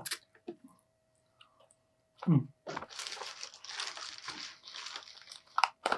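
Paper food wrappers and cardboard packaging crinkling and rustling as food is pulled out of a Happy Meal box. The crinkling starts about three seconds in and lasts nearly three seconds.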